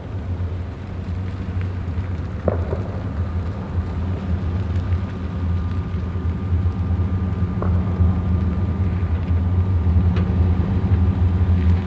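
Chevy 2500HD pickup's 6.0-litre V8 running at low speed as it backs a travel trailer, a steady low drone that grows slowly louder as it comes closer. A few faint knocks ride on top of it.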